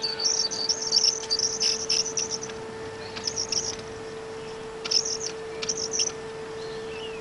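Battery-electric model tramcar running on 5-inch gauge track with a steady, even whine. Over it come repeated bursts of high-pitched chirping or squealing, most dense in the first two and a half seconds, then in shorter bursts at about three and a half, five and six seconds in.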